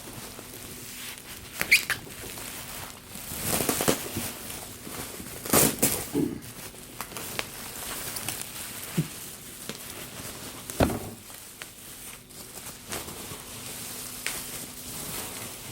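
Bubble wrap rustling and crinkling in irregular swishes as it is pulled off and unwound from a laptop, with a few sharp clicks of handling.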